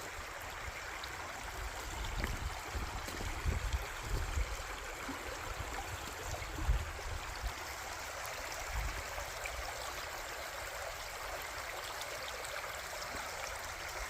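Creek water running steadily over rocks, with a few low thumps mixed in.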